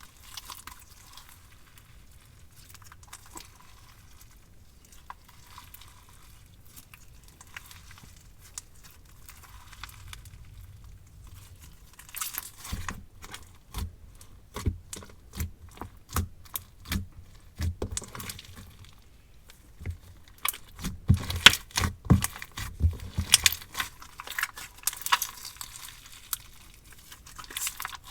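Marshmallow-type slime made with Elmer's glue, squeezed and played with by hand. It gives quiet scattered clicks at first, then from about halfway a fast run of sharp clicks and pops, loudest a little past three-quarters of the way through.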